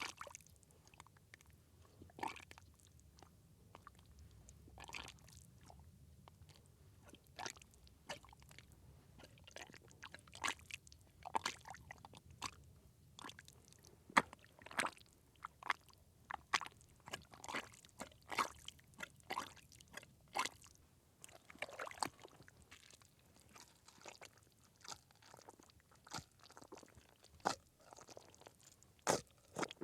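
Small wet squishes of mud: a string of short, irregular squelches, a few seconds apart at first and coming more often from about ten seconds in.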